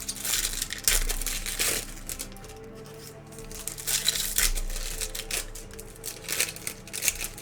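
Plastic foil trading-card pack wrappers crinkling in the hands as packs are handled and opened, in short crackly bursts over steady background music.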